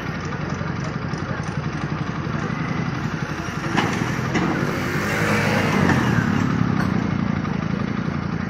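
Motor vehicle engines and road noise running steadily. A sharp knock comes about four seconds in, then the sound swells with a rising and falling pitch as a vehicle passes close, before settling back.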